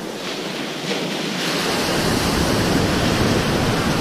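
Ocean surf breaking and rushing in whitewater around the angler standing in the shallows. The rush swells and grows louder about a second and a half in as a wave comes through.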